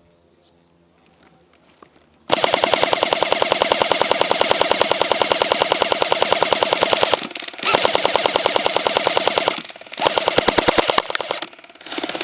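Airsoft gun firing on full auto: after a quiet start, a long rapid burst of about five seconds begins about two seconds in, followed by three shorter bursts with brief pauses between them.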